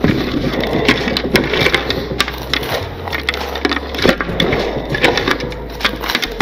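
Lay's potato chips crunching and crackling, a dense run of rapid small snaps with a few sharper cracks about a second in and again around four and five seconds in.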